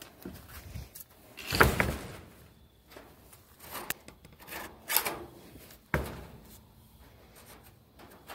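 Wooden chicken-coop door with a wire-mesh panel being worked shut and fastened by hand: wood rubbing and knocking, with a heavy thud about a second and a half in and a sharp knock about six seconds in.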